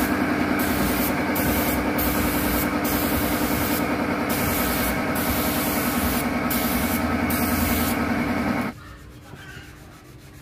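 An air compressor runs with a steady hum while a paint spray gun's air hisses, breaking off and coming back again and again; both stop suddenly near the end, leaving only faint sound.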